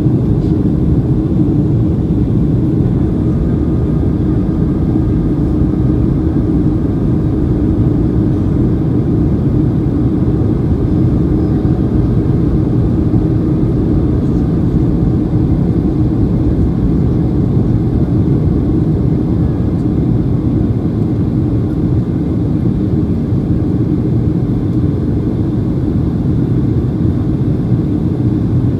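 Steady cabin drone inside a Boeing 737-800 in flight: airflow noise and its two CFM56-7B engines, heard from a window seat over the wing. It is an even low rumble with no change in pitch or level.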